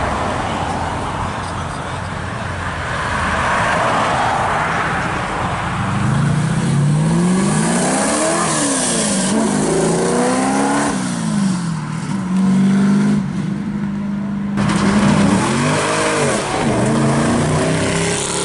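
Loud exhaust of a first-generation Chevrolet Camaro accelerating away, its engine pitch rising and falling repeatedly as it revs hard, then holding steady for a few seconds. After a sudden cut near the end, another car's engine revs up and down.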